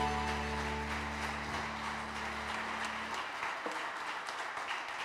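Audience applauding as the final held chord of the music dies away: the upper notes stop about a second in and the low notes about three seconds in, leaving only the clapping, which slowly gets quieter.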